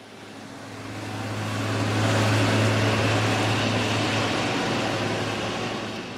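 A road vehicle passing close by, its engine hum and tyre noise swelling over about two seconds and then slowly fading away.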